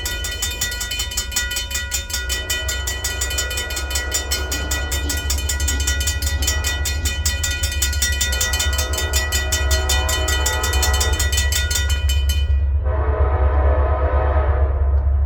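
A freight train approaching and sounding its horn: a low rumble builds while the horn blows, faint at first and then loud near the end. A grade-crossing bell rings rapidly and cuts off about twelve seconds in.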